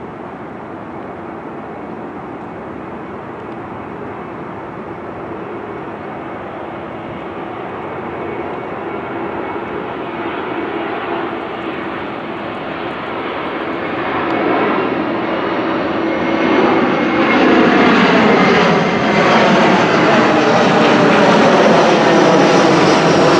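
Airbus A321-200 jet airliner on landing approach passing low overhead, its engine noise growing steadily louder and loudest over the last few seconds as it goes over.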